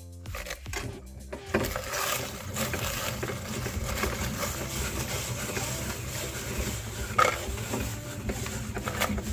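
Music ends about a second and a half in. After that a meat grinder runs, crushing salty biscuits: a steady low hum under dense crackling and crunching.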